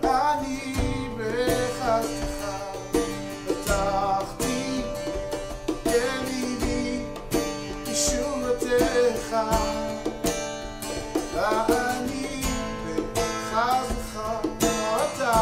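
Background music: a song with plucked acoustic guitar and a sung melody.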